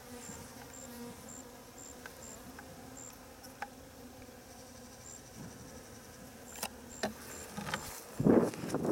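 An insect chirping in short, high pips, about two a second, with pauses, over a faint low hum. A few sharp clicks come late on, and a loud rustle near the end.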